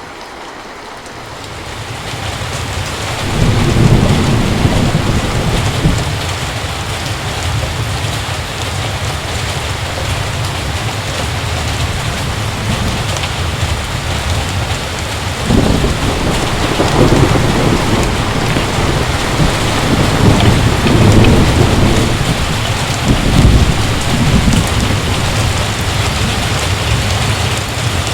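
Heavy rain falling steadily, with thunder rolling and rumbling several times: first a few seconds in, then repeatedly in the second half.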